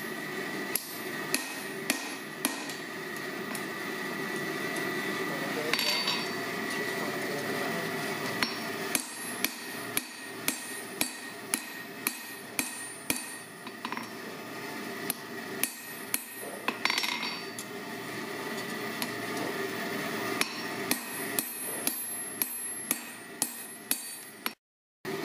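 Hand hammer striking a red-hot block of forklift-tine steel on an anvil, forging a claw hammer head, in runs of steady blows about two a second with short pauses between runs. A steady hum sits underneath.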